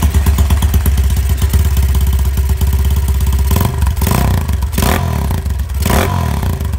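Custom Honda CB motorcycle engine running loud through an aftermarket Jogja N2T exhaust, with a fast, pulsing idle. There are a few short throttle blips in the second half.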